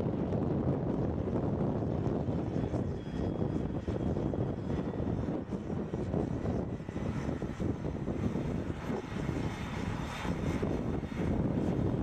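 John Deere 8345RT tracked tractor's diesel engine working under load as it pulls a plough through stubble, a steady low rumble as it comes closer.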